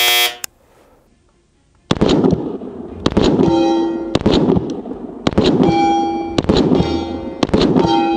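Staccato XC compensated pistol fired in a slow, even rhythm of about one shot a second, six shots in all. Each shot is followed by the ringing of a small round steel plate being hit. A brief tonal sound-effect sting comes first, then about a second and a half of quiet before the first shot.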